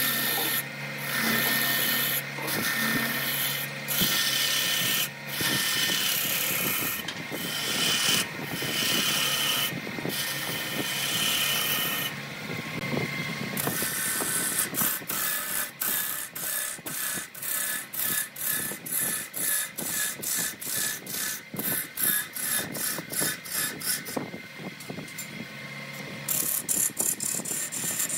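A hand-held gouge cutting a redwood blank spinning on a wood lathe: a loud hiss of shavings being peeled off, broken by short gaps. From about halfway it turns into quick repeated cutting strokes, a few a second.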